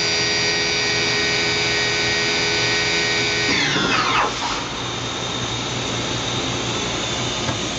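Kitamura MyCenter 2X-if vertical machining center spindle whining at high speed with a steady high tone. About three and a half seconds in it is switched off and winds down in a quickly falling whine to a stop, leaving a steady hiss.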